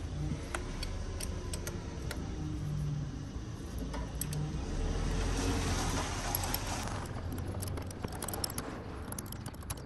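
Small metal spanner clinking and tapping against parts in a car's engine bay, a scattered run of light metallic clicks, with some rustling about halfway through.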